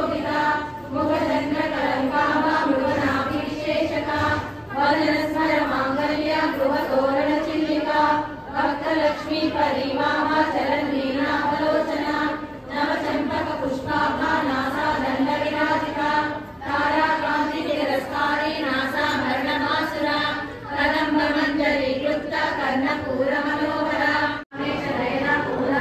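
A group of women chanting a devotional song in unison, in repeated phrases about four seconds long, with a brief sharp break near the end.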